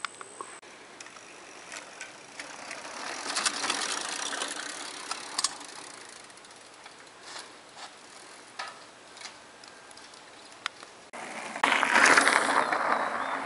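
Mountain bikes riding on a dirt trail: tyres crunching over gravel with clicks and rattles from the bikes. It is loudest about three to five seconds in and again near the end, as a rider passes close.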